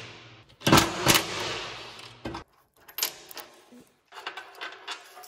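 Cordless impact driver hammering on a mower-deck bolt in two short bursts about a second in, its rattle fading out after about a second and a half. A few light metallic clicks follow near the end.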